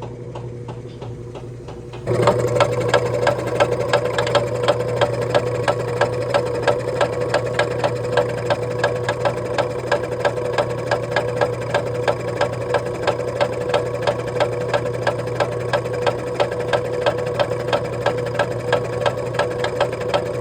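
Old, broken air compressor running, its damaged pump clattering with a fast, even knock over a steady hum. The knocking starts suddenly about two seconds in.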